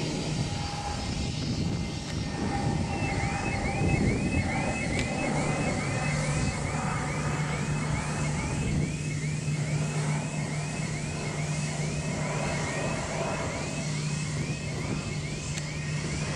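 Airbus A319-132's IAE V2500 jet engines running with a steady rumble and low hum as the airliner rolls along the runway after landing. A faint high chirp repeats about twice a second from about three seconds in.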